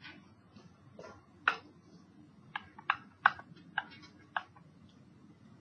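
Hard stylus tip tapping and clicking on a pen display as a line is handwritten: about seven short, sharp, irregular ticks starting about a second in.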